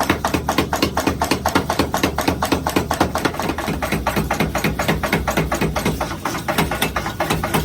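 Power hammer striking hot steel in a rapid, steady run of blows, about five or six a second, over a low machine hum.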